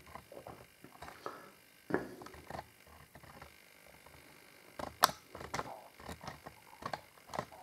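Scattered light clicks, taps and scrapes of hands handling a white ribbed plastic threaded fitting, with one sharp click about five seconds in.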